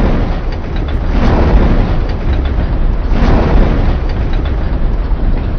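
Sound effect of a TV station's closing logo ident: a loud, dense rumbling noise with a heavy low end that swells several times.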